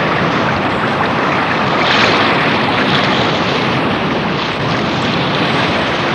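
Sound effect of rushing, surging water, a steady wash like breaking surf that swells about two seconds in.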